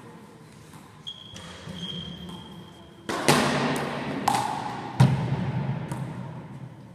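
One-wall handball rally in a sports hall: three sharp smacks of the ball being struck and hitting the wall, about three, four and five seconds in, each ringing on in the echo of the hall. A high steady squeak comes before them, from about a second in.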